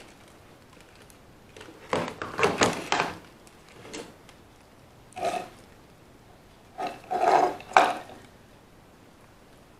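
Close handling noise: several short bursts of rubbing and knocking, the longest about two seconds in, another around five seconds and a cluster near seven to eight seconds.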